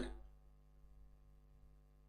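Near silence: faint room tone with a low steady hum, as the echo of the last spoken word dies away just after the start.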